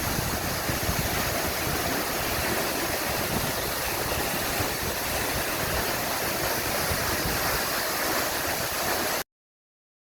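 Waterfall rushing in a steady, even roar of water, which cuts off abruptly about nine seconds in.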